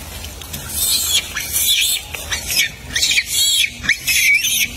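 Rhesus macaques giving a rapid series of short, shrill squeals, starting about a second in and repeating several times a second.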